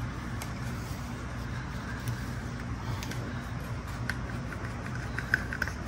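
Small, faint plastic clicks as square lug bolt covers are pried off an alloy wheel with a pick, a few of them in quick succession near the end, over a steady low hum.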